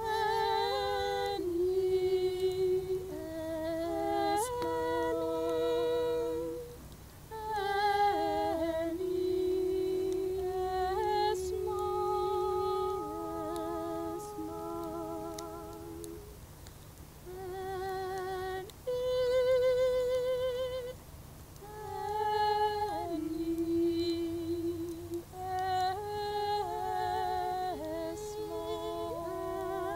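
Two women's voices singing slowly and unaccompanied in harmony, with long held notes and vibrato and a few short pauses: the name of a departed loved one being sung in remembrance.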